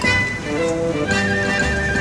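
Instrumental passage of a sung Japanese popular song: a melody of held notes stepping in pitch over a regular low beat, between sung verses.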